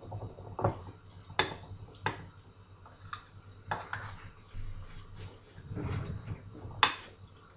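Kitchen utensil knocking and clinking against a bowl while a pumpkin cutlet mixture is stirred by hand: about six sharp knocks with softer stirring between, the loudest knock near the end.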